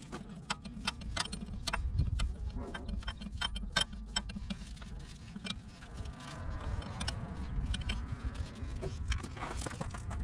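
Irregular metallic clicks and clinks from hand work on the boom lift's parts, over a steady low rumble.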